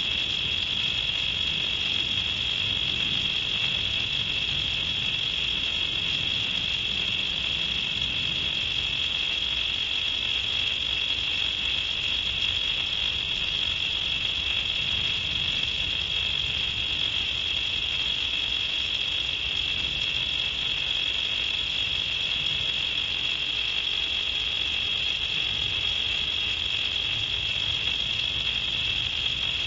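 Crickets trilling in a steady, unbroken chorus.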